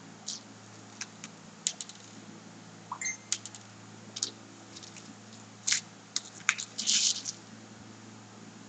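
Small beads clicking against each other and the dish as they are picked up and strung: a dozen or so light ticks, with a quick rattle about seven seconds in, over a steady low hum.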